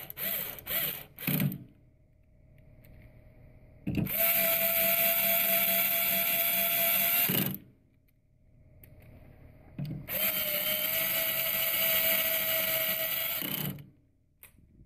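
Cordless electric screwdriver with a T10 Torx bit driving the screws that hold the coupler in the bowl, running in bursts: a few quick blips at the start, then two steady whining runs of about three and a half seconds each.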